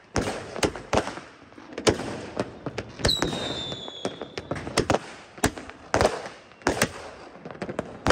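Fireworks going off in a rapid, irregular series of sharp bangs, some close and some farther off. About three seconds in, a firework gives a thin whistle lasting about a second, falling slightly in pitch.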